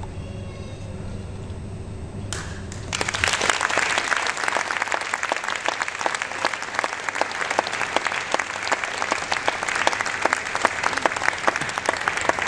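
An audience applauding, breaking out suddenly about three seconds in and going on steadily as a dense patter of many hands; before it, only a low steady hum.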